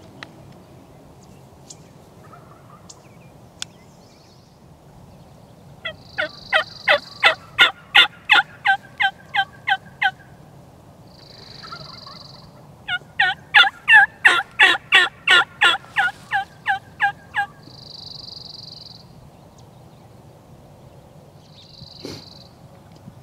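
Wild turkey yelping: two long, loud runs of rapid, evenly spaced yelps, about three a second, the first a little after the start and the second midway.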